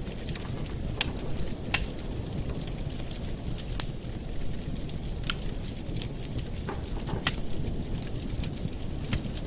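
Campfire burning: a steady low rumble of flame with sharp, irregular crackles and pops from the burning wood.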